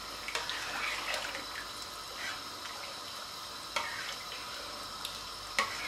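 Thin soup being stirred round a nonstick pot with a spatula: liquid sloshing and swirling, with a couple of light knocks of the spatula against the pot, one about four seconds in and one near the end.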